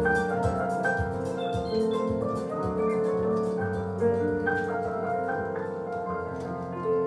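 Coladeira played on an electronic keyboard: held chord tones under a moving melody, over a steady ticking percussion beat.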